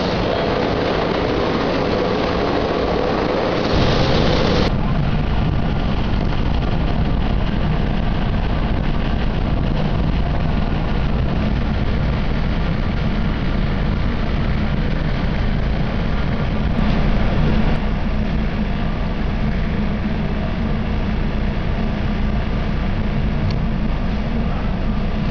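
SEPTA electric commuter train sounds. First the train moves along the platform, then after an abrupt cut about five seconds in comes a steady rumble of the train running at speed, heard from inside the car.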